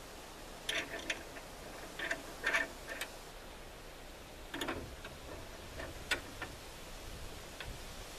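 Scattered light clicks and clinks of small metal parts being handled as the blade tension spring stack and a washer are fitted onto a greased threaded tensioner screw.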